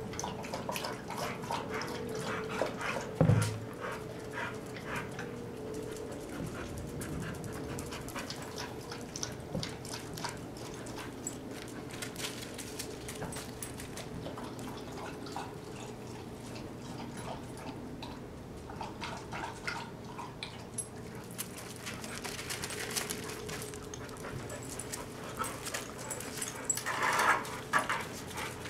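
A dog drinking from a bowl, with many quick, irregular wet clicks of lapping. There is a heavy thump about three seconds in and a short, louder dog sound near the end.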